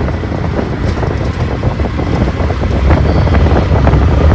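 Car driving along, a steady low rumble of road and engine noise heard from inside the cabin.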